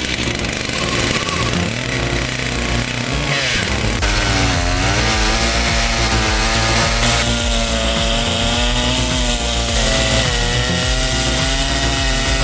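Chainsaw engine running, its pitch rising about four seconds in and then holding with a slight waver.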